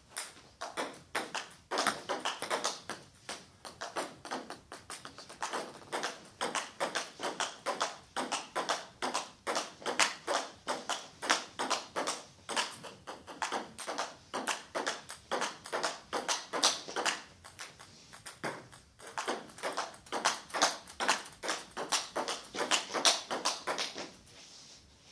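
Table tennis rally: the ball clicking steadily off the bats and the table top, about three hits a second, stopping shortly before the end.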